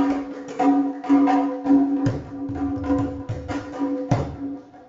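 Folk music: a two-headed barrel drum beaten by hand in an irregular pattern of strokes, over a steady held tone from a melody instrument. The music dips away near the end.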